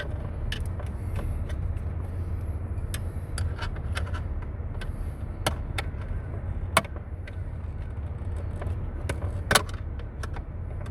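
Small flathead screwdriver prying at the plastic retaining clips of a car's centre console storage compartment: scattered clicks and scrapes of plastic, with two louder snaps about seven and nine and a half seconds in, over a steady low hum.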